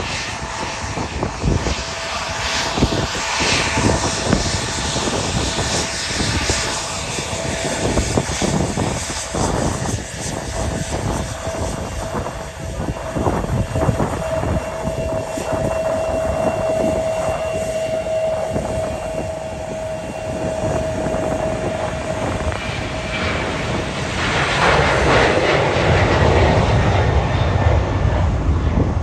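Jet engines of a United Boeing 737-900 on its takeoff roll: a steady whine over a rumble that grows clearly louder and fuller about 24 seconds in, as the airliner passes close by.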